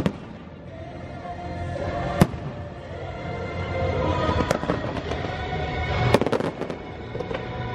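Aerial fireworks going off in a show finale, over the show's music. Single sharp booms come about two seconds in and near the middle, and a cluster of bangs and crackle follows about six seconds in.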